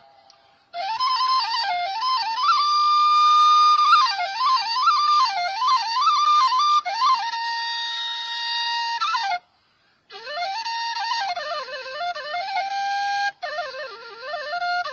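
Background music: a solo flute playing a melody of quick ornamented turns and held notes, in phrases broken by short silent gaps just after the start and about two-thirds of the way through.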